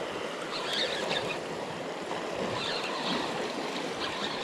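Small sea waves washing and splashing against shoreline rocks, a steady rush of water with brief brighter splashes about a second in and again around three seconds in.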